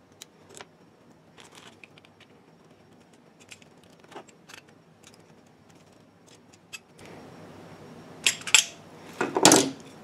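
Small metal parts clicking and clinking as a brass pressure relief valve and fittings are handled at a workbench. Louder clanks come near the end as the adjustable wrench is set down on the bench.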